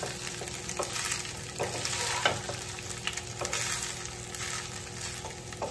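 Wooden spatula stirring and scraping cooked rice and coconut podi around a nonstick kadai, in repeated strokes over a light sizzle from the hot oil in the pan.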